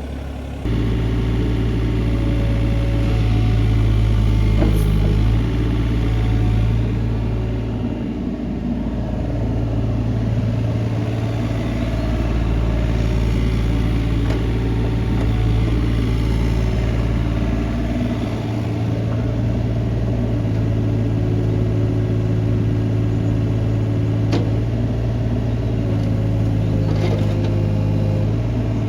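Diesel engine of a Kobelco SK28SR mini excavator running. It steps up sharply in loudness about half a second in as the revs rise, then runs steadily with its note shifting slightly a few times.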